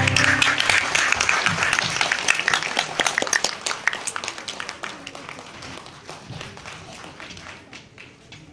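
Audience applauding, loudest in the first few seconds and then fading steadily.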